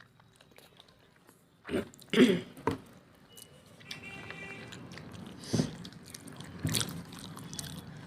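Close-up eating sounds of a person chewing mutton curry and rice: several short, sharp mouth sounds and bites about two seconds in and again later, over soft chewing.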